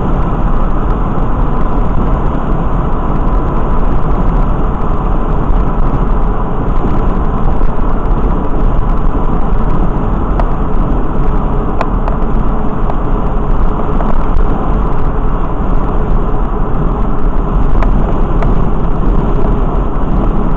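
Steady road noise of a vehicle cruising at freeway speed, heard from inside the cabin: engine and tyre sound with a strong low rumble.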